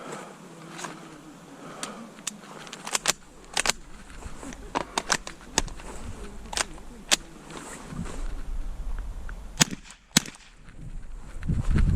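Small-calibre .22 rimfire rifle shots: a dozen or more sharp cracks, some fired in quick pairs and triplets, as in an IPSC Mini Rifle stage. A low rumble builds near the end.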